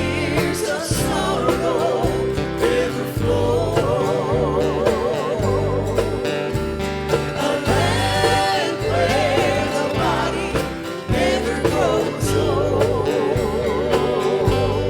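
Gospel song sung with instrumental accompaniment: voices with a wavering vibrato over a steady bass line.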